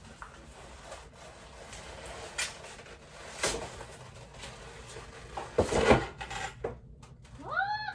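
Hard plastic lightsaber hilt and crossguard parts being handled and fitted together: scattered knocks and clatter, the loudest about six seconds in. Near the end there is a short pitched sound that rises and falls.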